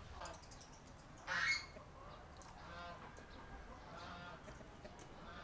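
Domestic fowl calling: one loud call about a second and a half in, then a few shorter, quieter calls.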